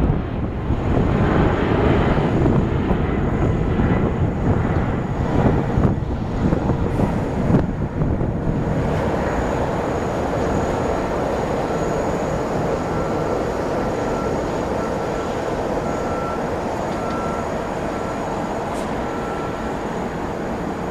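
Boeing 737 MAX 8 jet engines (CFM LEAP-1B turbofans) running at takeoff power through the takeoff roll. A loud, uneven rumble for the first several seconds as the jet passes, then a steadier, slightly fainter rumble as it speeds away and lifts off.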